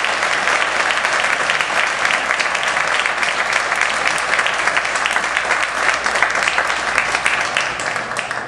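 Audience applauding: dense, steady clapping that starts to thin out and fade in the last second.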